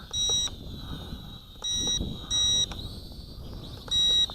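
Four short electronic beeps from a toy quadcopter's radio-control transmitter, with the middle two close together, over a faint steady high-pitched whine.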